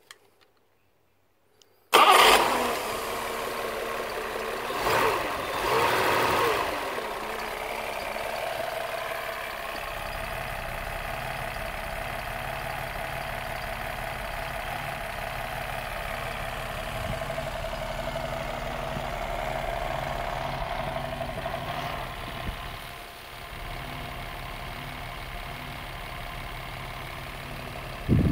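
Restored Mercedes-Benz M180 straight-six, running out of the car on a test stand, started with the key: near silence, then about two seconds in it catches suddenly, is revved briefly twice, and settles into a steady idle. A short loud thump comes right at the end.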